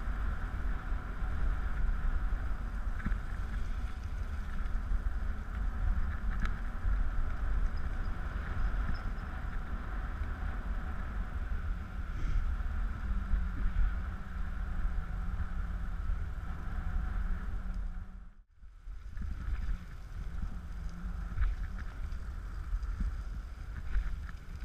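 A wheeled dog-pulled rig rolling steadily over a dirt forest track, with a constant low rumble and wind on the microphone. The sound cuts out for a moment about three-quarters of the way through.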